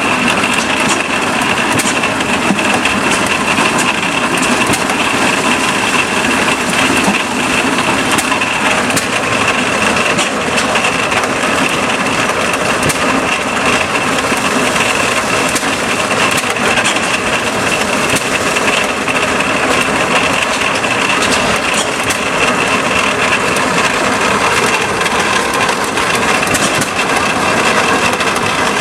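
Antique belt-driven farm machinery running steadily while processing corn: a dense, continuous clatter with a steady high whine and many small clicks.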